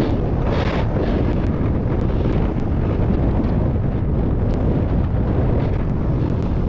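Wind buffeting the microphone of a camera carried by a skier moving down the slope, a steady loud rumble, with swells of hissing ski scrape on the groomed snow, the clearest just after the start.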